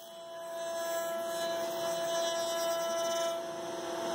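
Router spindle of a shop-built KRMx02 CNC router running at 20,000 RPM, a steady pitched hum that grows a little louder in the first second, as a 1/2-inch ball-nose bit takes a light finishing cut along a Douglas fir workpiece turning on the rotary axis.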